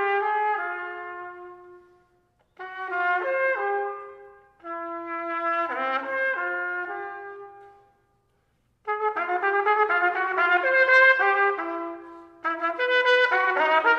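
Solo trumpet playing phrases of held notes broken by short rests, then from about nine seconds in a busier passage of quick, detached notes.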